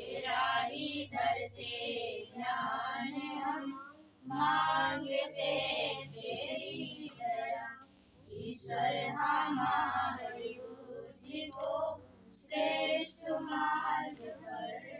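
Girls' and a woman's voices chanting Sanskrit havan mantras together in a sing-song recitation, in phrases about four seconds long with a short breath between each.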